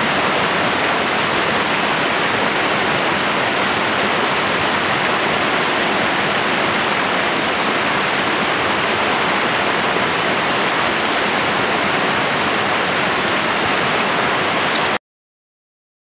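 Rocky mountain stream rushing and cascading over stones, a steady rush of water that cuts off abruptly about a second before the end.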